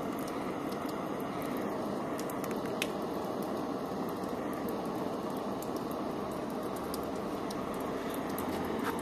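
Gas blowtorch flame hissing steadily as it heats oil-contaminated bicycle disc brake pads to burn the oil off, with scattered faint crackles.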